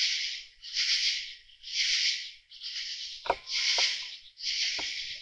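Night insects calling in a steady rhythm of rasping pulses, about one a second. Two light clicks a little past three seconds in.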